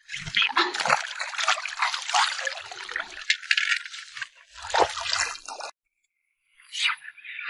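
Lake water splashing and trickling as a landing net holding a large silver carp is lowered back into the water to release the fish. The splashing cuts off suddenly near the end.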